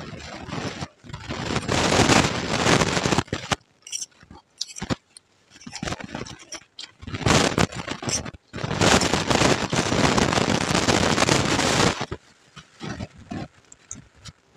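Close-up crunching of puffed rice mixed with ghugni being chewed, in two long spells: about a second in, and again from about seven to twelve seconds. Between them, a steel spoon clicks and scrapes against a steel plate.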